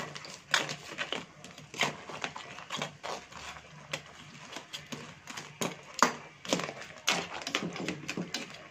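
A metal ladle clinks, knocks and scrapes against a stainless steel wok and hard crab shells as crabs are stirred in a boiling broth. The knocks come irregularly, about one or two a second.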